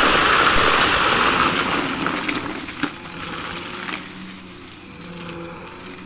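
Vacuum cleaner sucking up crunchy debris: a loud rush of crackling grit, with a couple of sharp clicks, that dies away over about three seconds, leaving the steady hum of the running motor.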